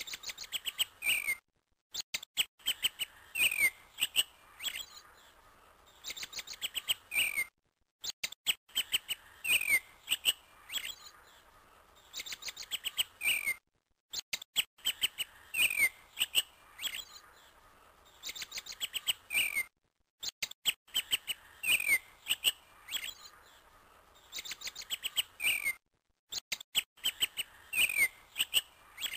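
Small birds chirping in quick runs of short, high notes, some sliding down in pitch. The same few seconds of birdsong repeat about every six seconds, each time broken by a brief silence, like a looped recording.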